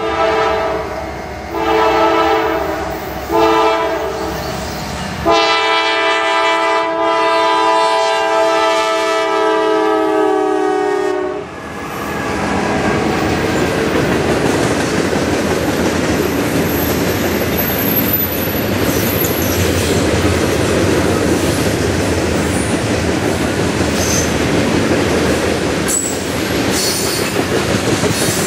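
Norfolk Southern D9-44CW locomotive's Nathan K5LA five-chime horn blowing the grade-crossing signal: two long blasts, a short one, then a long blast of about six seconds as the train arrives. Then the freight cars roll past with clickety-clack and brief wheel squeals.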